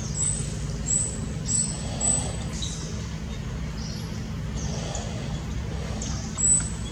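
Short, very high chirps, several spaced out over the first two seconds and a louder one near the end, over a steady low rumble of distant traffic.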